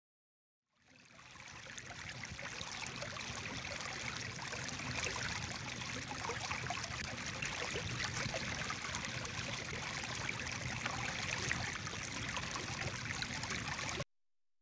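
Running water like a babbling stream, fading in over the first couple of seconds, then a steady rush that cuts off abruptly near the end.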